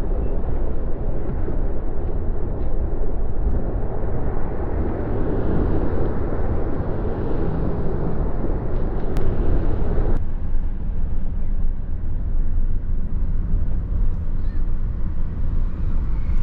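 Steady outdoor rumble of vehicle traffic with low buffeting on the microphone. About ten seconds in, the higher part of the noise cuts off sharply, leaving mainly the low rumble.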